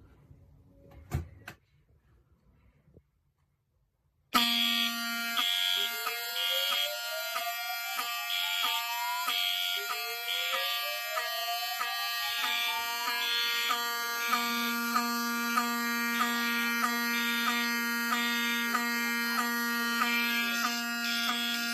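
After a brief click about a second in, fire alarm horns come on suddenly about four seconds in, set off by a smoke detector tripped with test smoke. A Wheelock 7002 horn sounds continuously and very loudly, while a Cerberus Pyrotronics MTL-S17F horn pulses in code 3, three blasts then a pause. Two rising whoop sweeps are heard early in the alarm.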